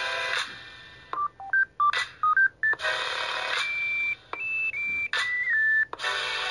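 Electronic meme soundtrack of short beeping tones that hop up and down in pitch like phone-keypad dialing, broken by loud buzzy synth chord hits about four times.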